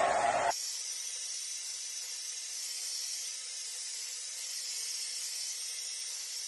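Hand-held hair dryer blowing. It gives a full rushing noise for about the first half-second, then a steady, thin, high-pitched hiss.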